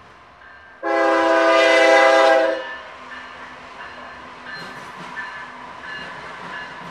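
Diesel freight locomotive air horn sounding one loud chord blast of about a second and a half, followed by the steady rumble and clatter of the train rolling by.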